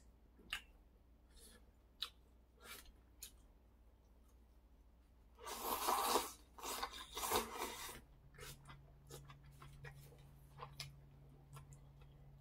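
Slurping hot malatang broth from a small bowl: a loud, noisy slurp lasting a couple of seconds about halfway through, between scattered small clicks of eating and chopsticks. A low steady hum comes in near the slurp's end and carries on.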